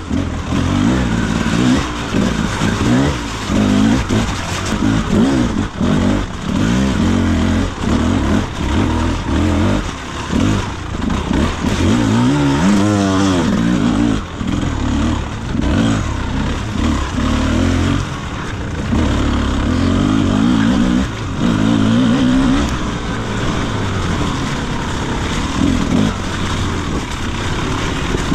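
Beta RR enduro motorcycle engine revving up and down with constant throttle changes as it is ridden hard through mud, with a sharp rise and fall in pitch about halfway through.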